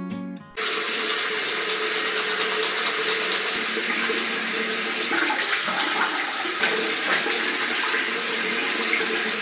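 Water running steadily in a strong, even rush, starting about half a second in.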